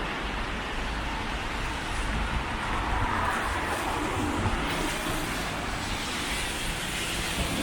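Steady road traffic noise from passing cars, swelling slightly and easing off.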